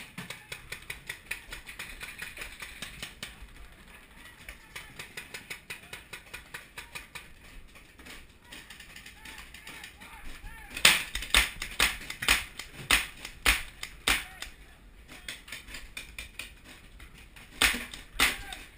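Paintball marker fire: a fast run of faint pops, then a string of louder, closer shots at about two a second in the middle, and two more near the end.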